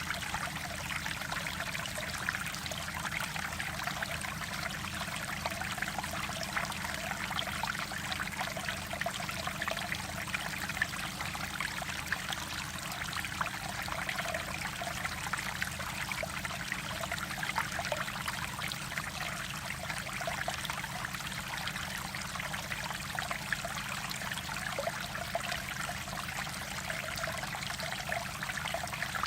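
Mountain stream water running and trickling over rocks, a steady, even babble.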